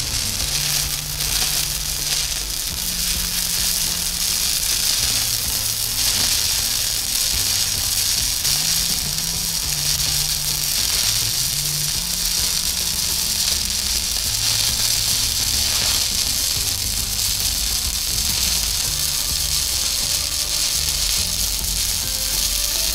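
Stick (MMA) welding arc crackling steadily as a flux-coated electrode burns through a weaving capping run on a vertical fillet joint.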